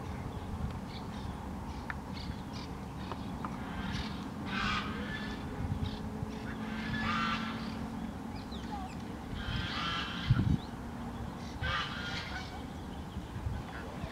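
Domestic geese in a flock honking, about four separate calls spread through, with fainter smaller calls between. A short low thump about ten seconds in.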